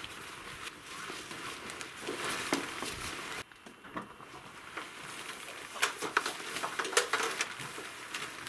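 Lightline Gear SUV tent fabric rustling and crinkling as it is handled and pulled into place during pitching, with scattered light knocks and clicks. The sound breaks off suddenly a little over three seconds in, then resumes.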